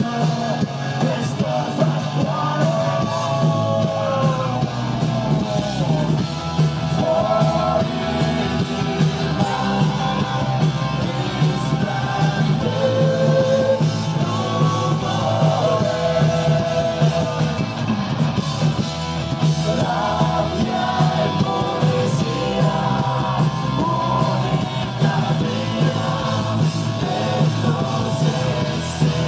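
Live rock band playing, with a man singing over electric guitar, bass and drums.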